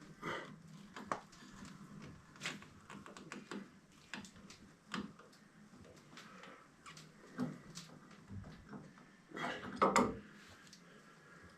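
Scattered clicks, knocks and rustles of things being handled at close quarters, with a louder clatter of knocks near the end.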